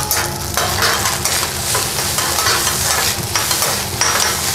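Metal spatulas scraping and tapping repeatedly on a hot steel teppanyaki griddle while rice and egg fry with a steady sizzle.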